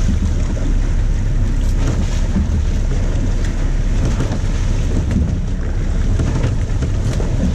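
Steady low rumble of a sport-fishing boat, with wind buffeting the microphone and water churning at the stern.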